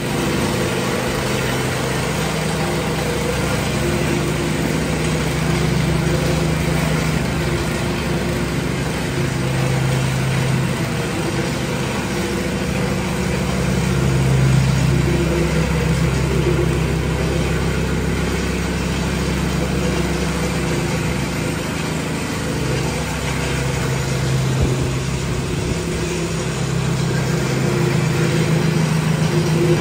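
Gas-engine plate compactor running steadily, its small engine and vibrating plate beating the ground with a rapid, even pulse.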